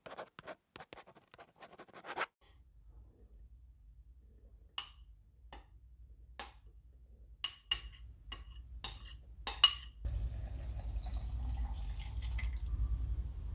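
Dry ingredients tipped and tapped into a plastic blender jug with scattered sharp clicks, then from about two-thirds of the way through a pale liquid poured steadily into the jug. A quick run of light scratching comes at the start.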